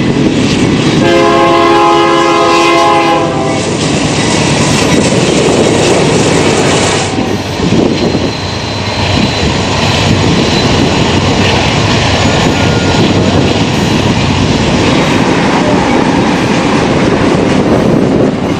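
A diesel freight locomotive's air horn sounds a chord of several notes for about two seconds, starting about a second in, over the loud rumble and wheel noise of a passing BNSF freight train. The train noise runs on steadily after the horn stops.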